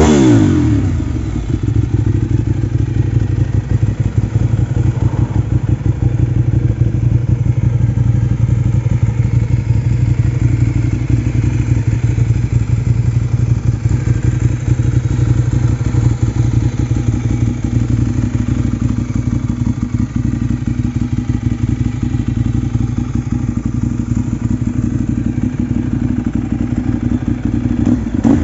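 Ducati 848's L-twin engine through a Termignoni exhaust, coming down from a rev in the first second or so and then idling steadily with a fast, even pulsing beat. Revs rise and fall again right at the end.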